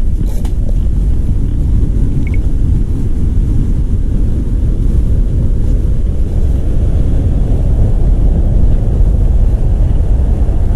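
Wind buffeting the microphone: a loud, steady low rumble with no speech over it.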